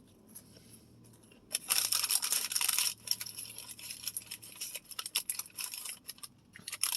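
Paper fast-food wrapper rustling and crinkling close to the microphone: a loud stretch of just over a second starting about a second and a half in, then scattered crackles.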